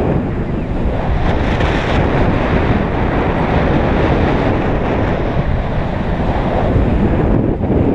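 Steady rushing wind noise from airflow over the microphone of a paraglider's harness-mounted camera in flight.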